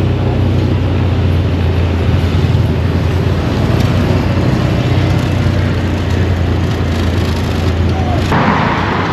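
Rented motor scooter running on the move, with a steady low rumble and wind rushing over the microphone.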